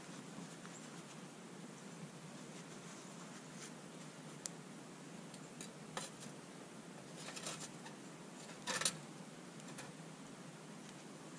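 Scattered light metal clicks and scrapes as a wire grill grate is handled and set on top of a small tin-can wood stove, with the loudest clink near the end.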